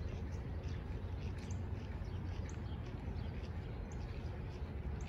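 Outdoor ambience by open water: a steady low rumble with scattered faint, short high chirps, about one every second.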